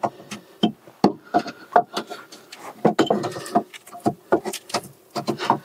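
Irregular knocks and clinks of a front brake caliper being handled by gloved hands, metal parts knocking together.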